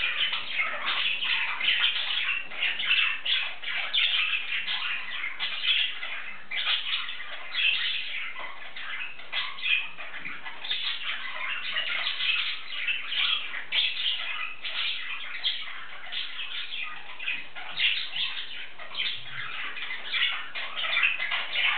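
Male English budgie warbling and chattering to himself: a continuous, rapid stream of chirps and squawks.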